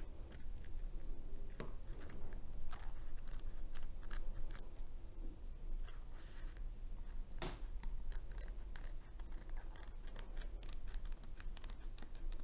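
Scissors cutting through the canvas of a diamond painting, a run of short snips along its edge, with a sharper snip about halfway through.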